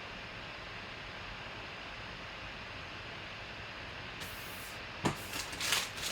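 Steady faint background hiss, then near the end a few sharp rustles and clicks of trading cards and their packaging being handled.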